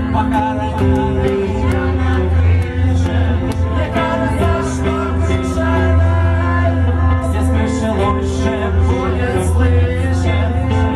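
Live band playing in a club, loud and bass-heavy: sustained bass notes, guitar, regular cymbal hits and a voice singing.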